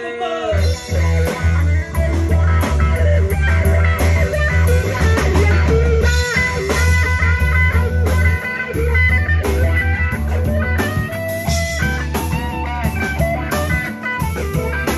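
Live rock band playing an instrumental passage, with no singing. A lead electric guitar plays bent notes over bass and drums.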